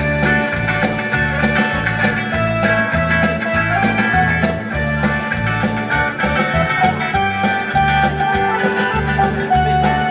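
Instrumental break of a country song played live: guitar over a bass line that alternates between two notes about twice a second, with a steady beat.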